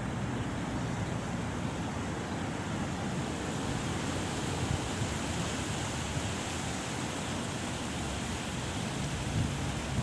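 Wind blowing through palm fronds: a steady rushing noise, with a low, uneven rumble of wind on the microphone.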